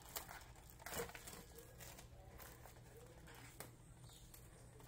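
Faint crinkling of a clear plastic sleeve being handled, a few soft rustles and clicks with the loudest about a second in, over quiet room tone with a low steady hum.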